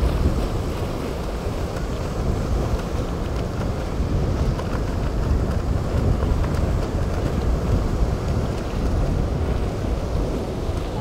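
Strong wind buffeting the microphone over the steady wash of breaking waves and surf, a continuous low rumble with no distinct engine note.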